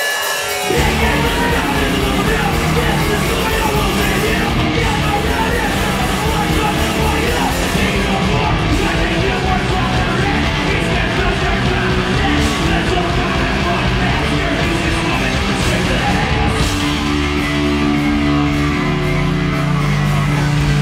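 Live heavy rock band playing loud, distorted music with yelled vocals, kicking in suddenly about a second in. Near the end the playing changes to steady, held low notes.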